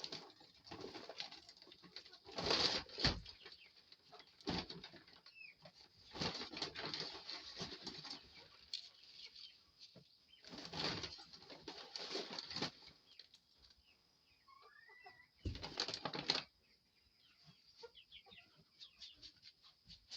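Chickens stirring: several bursts of rustling and wing flapping, a second or so each, with a few short soft chirps between them.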